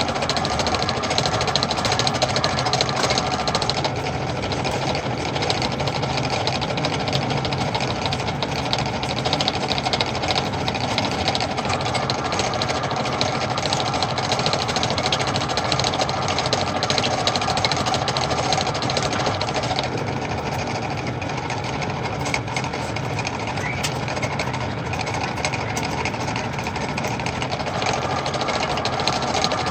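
Metal lathe running while machining a square thread, a steady mechanical hum under a dense, fast rattle.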